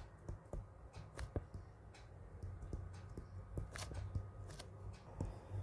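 Faint handling noise: a string of irregular light taps and rustles over a low steady hum.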